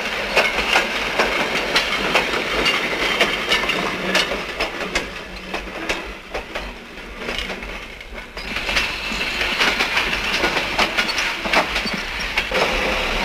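Railway freight wagons rolling along the track, wheels clattering over the rail joints with many irregular clanks and knocks. The sound dips for a couple of seconds past the middle and then comes back up.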